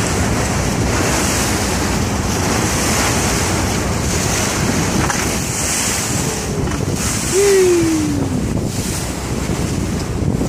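Wind buffeting the microphone over choppy open water, a steady rushing noise. About seven seconds in a brief falling tone sounds over it, the loudest moment.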